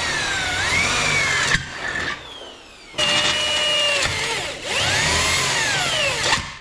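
Corded Ozito electric drill boring through a metal bracket, run in three bursts, with its motor whine dipping and rising in pitch as the speed changes under the bit's load.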